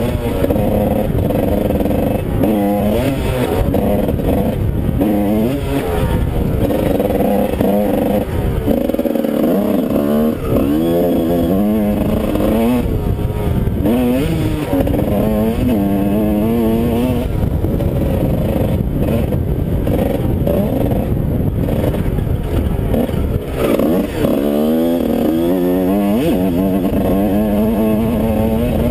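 1987 Honda CR125's two-stroke single-cylinder engine revving hard, its pitch climbing and dropping again and again with throttle and gear changes. Heard from a helmet camera, with wind rush.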